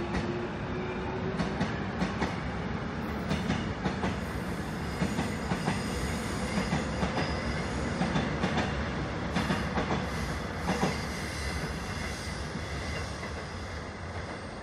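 Electric commuter trains running past close by: a steady rumble of steel wheels on rail, many sharp clicks as the wheels cross rail joints, and a thin high-pitched wheel squeal, easing slightly near the end.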